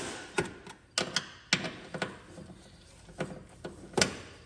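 Hand tool clicking and knocking in short, irregular strokes as the Torx bolts of the metal plate under the oil filter are tightened.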